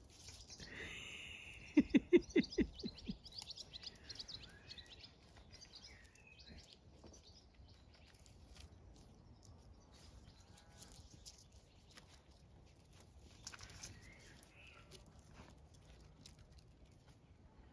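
Small birds chirping now and then, with soft rustling and clicks as puppies play on and tug at a plastic shopping bag. About two seconds in there is a short, loud, quick rattle of about ten knocks.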